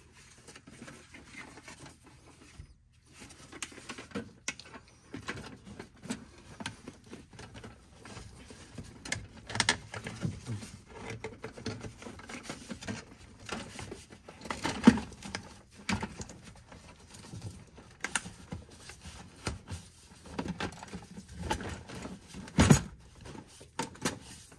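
Hard plastic air filter housing and lid being handled and pushed into place on an F-150: scattered rustling, scraping and knocks of plastic, with sharp clicks as parts seat, two of them louder, one about halfway through and one near the end.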